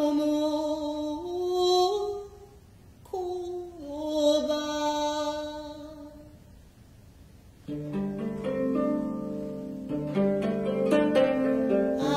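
Traditional Japanese ensemble music. It opens with two slow melodic phrases of held notes that step and slide in pitch. About eight seconds in, the seventeen-string koto and other plucked strings come in with a busy, ringing pattern.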